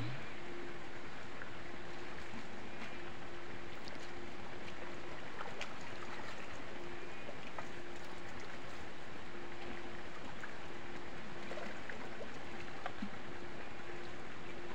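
Steady rush of water with a steady, even hum, as of a water pump draining the pond, with a few faint clicks and splashes now and then.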